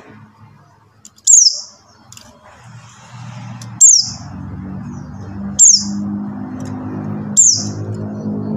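Buxtoni white-eye (pleci buxtoni) giving its call: short, sharp, high notes that sweep downward, repeated four times about two seconds apart. A low hum runs under the calls and grows louder about halfway through.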